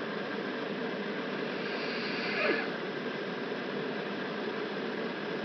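A sleeping woman snoring: one noisy snoring breath about halfway through, over a steady background hiss.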